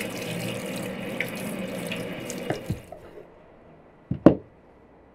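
Tap water running onto peeled onions in a stainless steel sink, cutting off about three seconds in. About a second later come two sharp knocks on a wooden cutting board as an onion is cut with a knife, the second knock louder.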